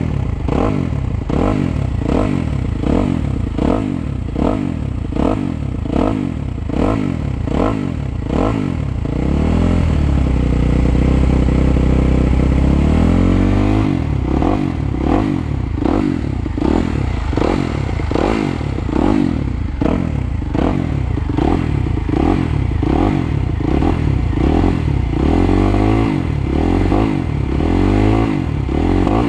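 Suzuki 250 motocross bike's engine revving up and down over and over as it is ridden round the track, each rise and fall lasting about a second. About ten seconds in, it holds a steady high pitch for some four seconds before the rapid rise-and-fall comes back.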